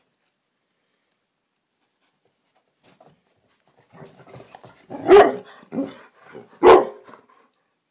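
Black Labrador barking twice, about a second and a half apart, after a few quiet seconds and some softer sounds leading up to the first bark.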